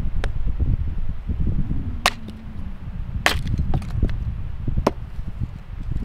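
Hatchet splitting firewood on a wooden chopping block: four sharp chopping strikes, the loudest a little past three seconds in, with lighter knocks of wood pieces between them, over a low rumble.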